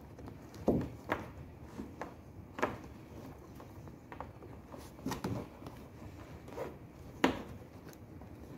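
A bungee cord being twisted and pulled tight through a fitting on a plastic kayak hull: a handful of short rubs and soft knocks of cord and hands against the hollow plastic, irregularly spaced, the loudest about a second in and near the end.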